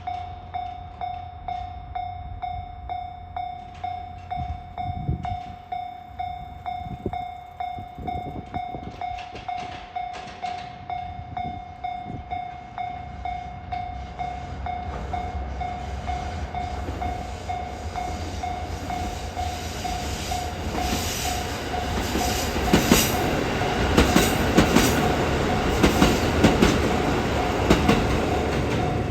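Japanese level crossing's electronic warning bell ringing at about one and a half strikes a second. From about halfway a train comes through, its running noise growing, and in the last third its wheels clack over the rail joints in regular pairs.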